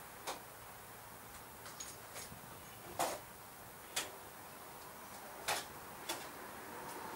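Tin snips cutting away a part that is hitting, to shave it for clearance. About seven sharp snips come at uneven intervals, the loudest about three seconds in.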